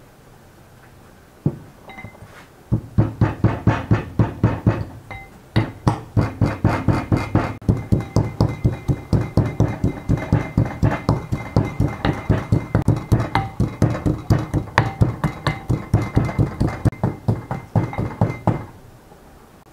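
Red plastic pestle pounding garlic cloves and salt in a small glass bowl: rapid, even strikes, about four a second, each making the glass ring. After a first single knock the pounding runs steadily, with one brief break, and stops about a second before the end.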